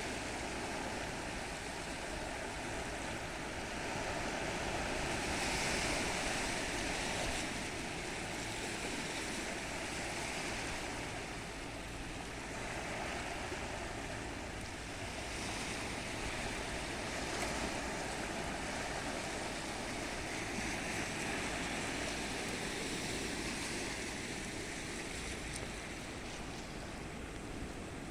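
Ocean surf: waves breaking and washing ashore in a continuous wash, swelling and easing every few seconds.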